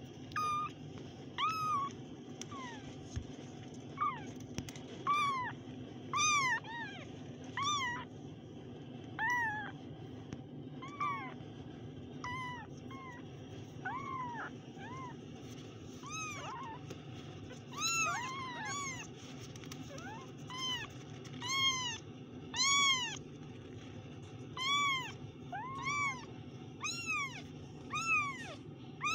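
A litter of young kittens mewing over and over: short high calls that rise and fall in pitch, about one or two a second, several kittens calling over one another.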